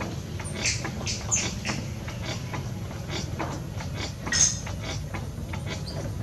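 Potter's wheel spinning with a steady low rumble, while wet clay under the potter's fingers gives irregular small squeaks and clicks, the loudest about four and a half seconds in.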